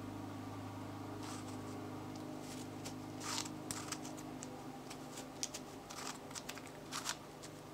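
A plastic Gyrobifastigium twisty puzzle is being turned by hand: scattered light clicks and short scrapes of its pieces sliding and snapping into place, over a faint steady hum.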